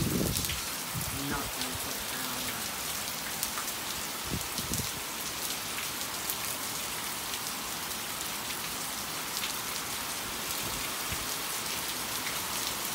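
Steady rain falling on wet ground, with scattered sharp drop hits close to the microphone.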